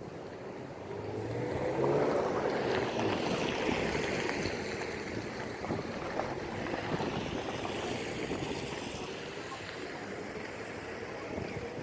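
Outdoor rumble of wind on the microphone, with a low engine hum that swells about two seconds in and then fades back.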